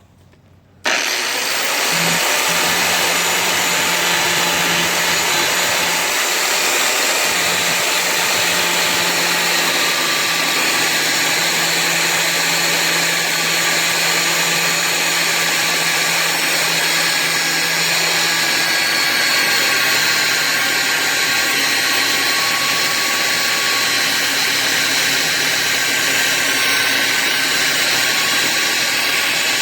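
Angle grinder with a DeWalt cutting wheel starting up about a second in and running loud and steady as it cuts down into a bolt.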